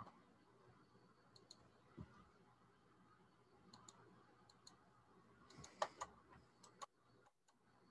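Faint computer mouse clicks over near silence, several coming in quick pairs like double-clicks, with a louder cluster of clicks a little before six seconds in.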